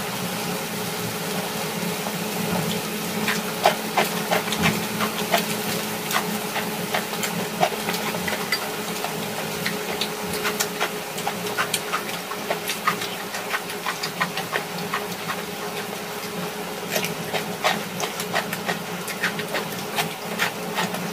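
Pork neck, mushrooms and onion sizzling steadily on a hot grill pan, with crisp, close-up chewing and mouth clicks that come more often from a few seconds in and thicken near the end.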